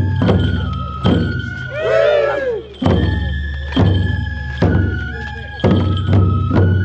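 Japanese folk festival music: a large taiko drum struck about once a second under a bamboo flute melody of held, stepping notes. About two seconds in a performer gives one shouted call that rises and falls in pitch.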